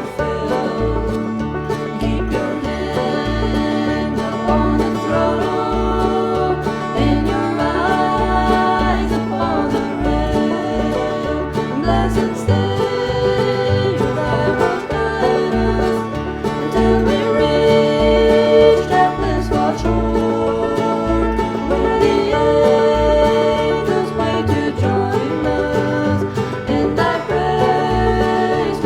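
Country gospel music in a bluegrass style, with plucked strings over a steady bass beat.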